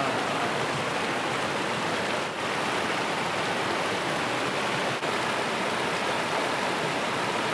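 Steady rush of a fast-flowing, muddy river churning over rocks and small rapids.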